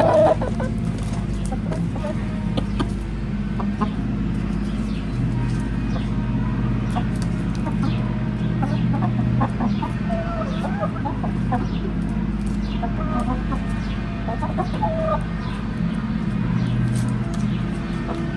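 Hens clucking softly while feeding on radish greens, with short calls and small sharp pecking clicks over a steady low hum.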